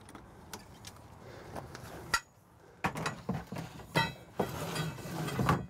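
Metal bed-support bars from a pop-up camper clinking and knocking as they are set down and stowed under the kitchen table. A sharp click comes about two seconds in, then a run of knocks, one with a ringing clink near the four-second mark.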